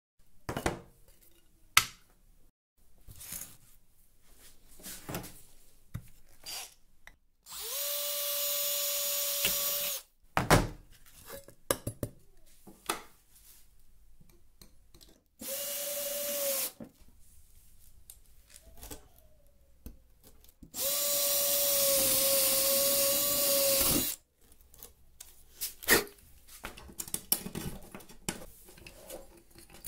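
Cordless drill running in three bursts at a steady pitch, the longest about three seconds, drilling a hole through a metal jar lid on a wooden board. Handling clicks and knocks come between the bursts.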